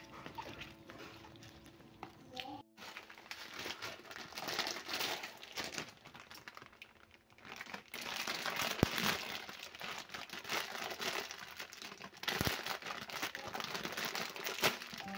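Thin plastic packet of dried rice vermicelli crinkling as hands handle it and open it, a dense crackling that gets louder about eight seconds in and again near twelve seconds.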